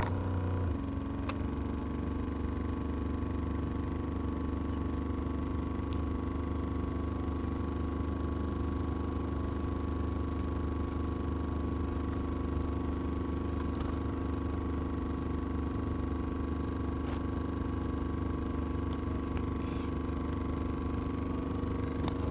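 Steady low mechanical hum with a few fixed tones, like a motor or engine idling; it comes on abruptly right at the start and holds unchanged.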